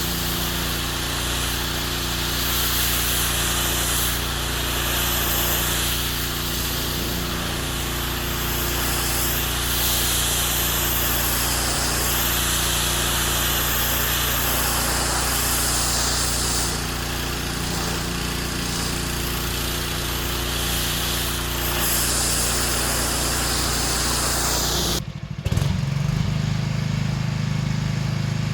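Small petrol engine running steadily under a loud hiss that swells and fades every few seconds. About 25 seconds in the sound breaks off sharply, and a lower, steadier engine note without the hiss follows.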